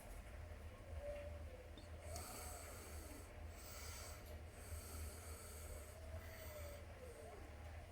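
A resting cat's soft, rhythmic breathing, faint, with a low steady rumble underneath and a few faint arching squeaky tones.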